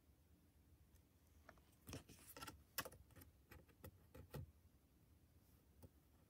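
Faint, irregular clicks and taps, about a dozen, mostly between two and four and a half seconds in, the loudest near the middle, over near silence: small hard objects being handled.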